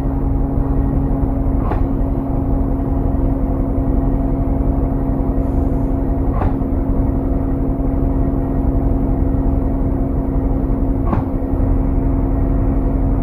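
Regional bus standing at idle, heard from inside near the driver's seat: a steady engine hum with a constant low tone. A faint short click comes about every four to five seconds.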